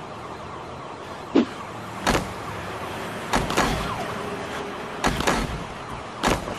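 Sparse percussive hits and swooshes, irregularly spaced about a second apart with no steady beat, some sliding down in pitch after the hit.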